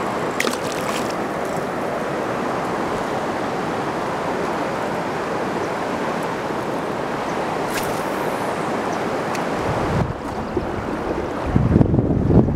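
Steady rushing of wind and water over the river, with a few light clicks. From about ten seconds in there are low buffeting rumbles on the microphone.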